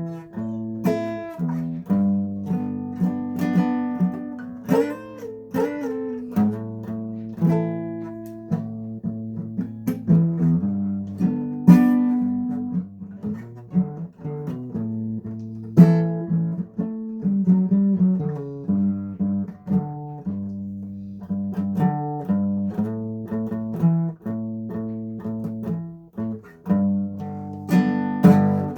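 Guitar playing: a continuous run of plucked notes and chords, with a few notes bent in pitch about five seconds in.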